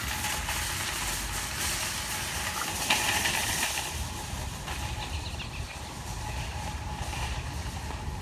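Shopping cart wheels rolling and rattling on asphalt as the cart coasts downhill, a steady noisy rumble with a sharp click about three seconds in; the noise fades in the second half.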